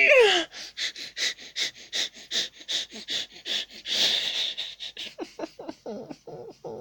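Kitchen tap dripping fast, about two and a half drops a second, each a short sharp splash, the last few near the end with a rising plink. A brief falling voice-like sound comes at the very start.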